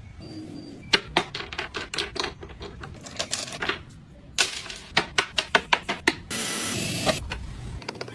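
Rapid sharp taps of a hand tool working wood, in two runs, the second faster at about five or six taps a second. About a second of steady hissing noise follows.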